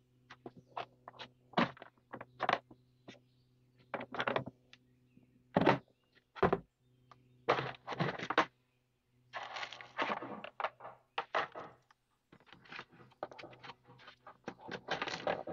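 Clicks and knocks from a Dremel hard plastic carrying case being opened and unpacked, with plastic bags rustling as the accessories and tool are lifted out. A steady low hum runs underneath.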